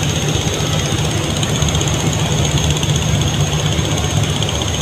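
A river passenger launch's engine running steadily while under way, a constant low drone with a thin steady high whine above it.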